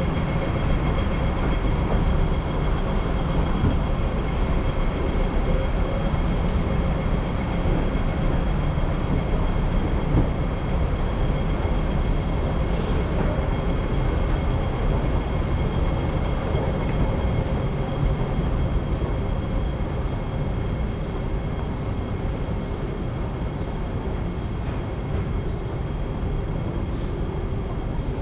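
Escalator machinery running: a steady low rumble with a faint, even high whine, easing a little in the second half.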